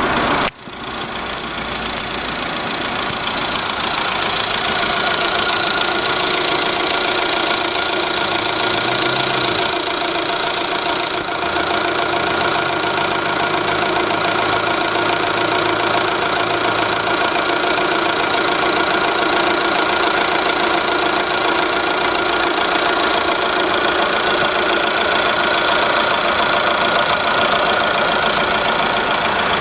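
Car engine idling steadily and smoothly, a continuous even hum, with a brief break about half a second in.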